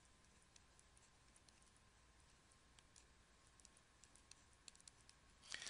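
Near silence, with faint scattered clicks of a stylus tapping on a tablet as words are handwritten, over a faint steady hum.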